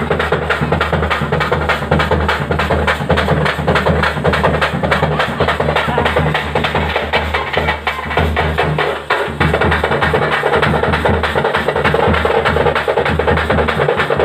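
Loud festival music driven by fast, steady drumming, the beat dipping briefly about nine seconds in.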